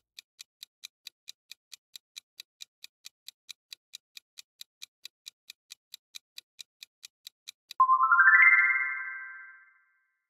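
Countdown timer sound effect of a quiz: a steady clock-like ticking, about four to five ticks a second. Near the end it gives way to a quick rising chime of ringing synth notes that fades out, marking the answer reveal.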